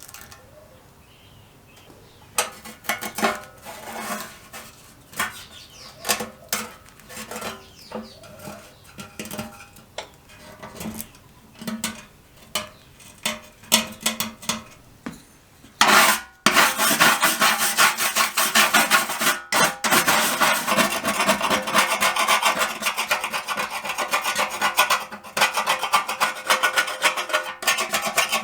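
Abrasive scraping on the rusted steel of a jerry can as the rust is worked off: separate strokes about twice a second at first, then, about halfway through, a louder, faster, continuous scraping.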